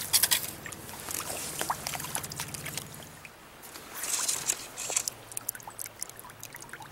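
Water splashing and dripping as a small trout is handled and lifted out of a stream, over the steady rush of the current.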